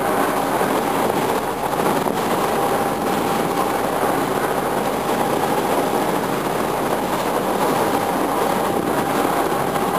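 A motor boat's engine running steadily under the constant rush of water churning in its wake.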